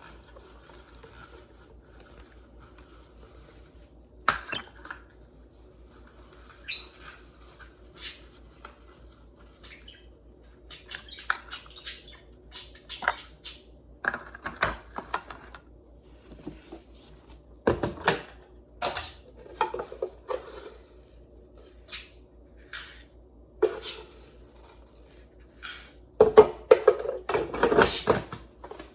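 Dishes and bird bowls clinking and clattering as they are handled, in short irregular knocks that come thicker near the end, with a few brief budgie chirps.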